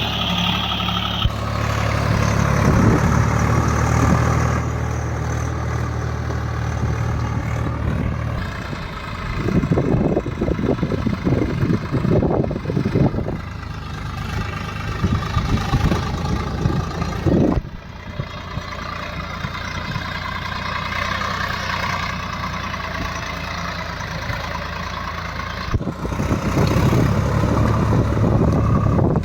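Diesel engine of heavy farm and earthmoving machinery running, with a steady low hum at first and later a stretch of dense crackling and knocking over the engine. The sound changes abruptly several times.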